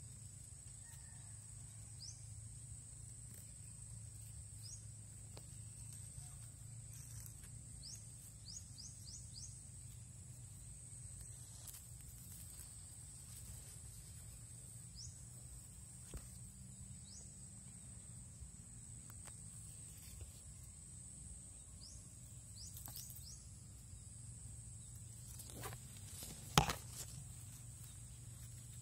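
Faint rural field ambience: a steady high-pitched insect drone, scattered short high chirps, and a low steady rumble underneath. A single sharp knock near the end is the loudest sound.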